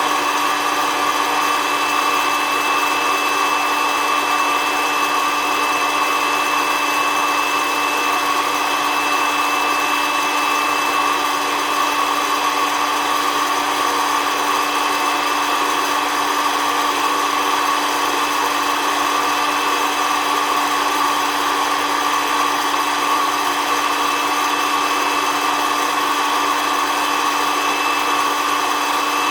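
SOUYI SY-121N hot-air coffee roaster running steadily, its fan blowing hard with a constant motor whine.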